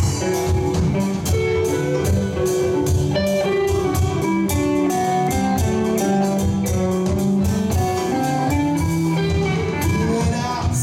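Live rock band playing an instrumental passage with no vocals: electric guitars over electric bass, keyboard and a steady drum beat.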